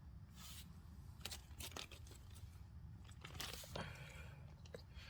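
Faint crinkling and rustling of a plastic bag being handled, with a few small clicks and scrapes.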